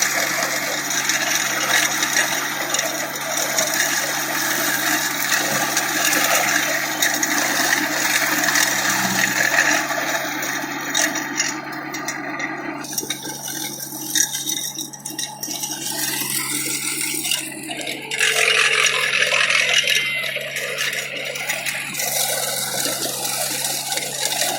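Atom mini tractor running with a stubble shaver (sugarcane ratoon cutter) at work: a steady engine hum under loud, noisy scraping and rattling from the cutter. The sound changes abruptly about 13 and 18 seconds in.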